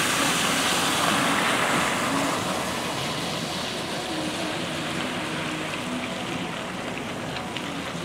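Cars driving past on a rain-soaked road, their tyres hissing on the wet pavement, loudest in the first two seconds as one passes close, then a steadier hiss as others go by farther off.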